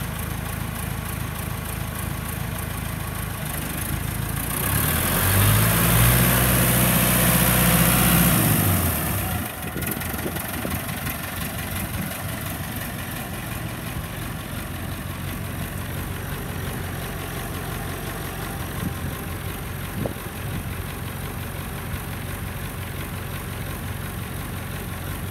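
Massey Ferguson 168 tractor's four-cylinder Perkins diesel running steadily. About five seconds in, the engine note rises and grows louder for about four seconds, then drops back sharply to a steady lower run for the rest of the time.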